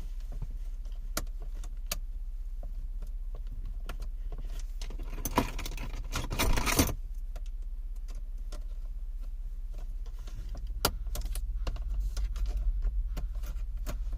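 Plastic center-console trim parts being handled and pressed into place: scattered light clicks and knocks, with a longer rustling scrape about halfway through, over a steady low hum.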